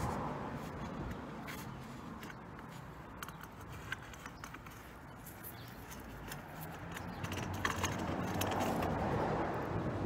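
Rigid plastic cable duct scraping and knocking against soil as it is fed down into a garden trench, with scattered small clicks. A low rumble, like a passing vehicle, swells up near the end.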